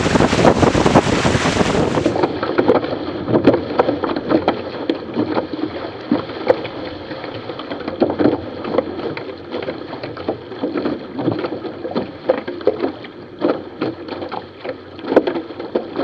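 Wind and water rushing past a fast-sailing trimaran for about two seconds. It then changes abruptly to a duller recording of choppy water splashing and slapping irregularly, with wind buffeting the microphone.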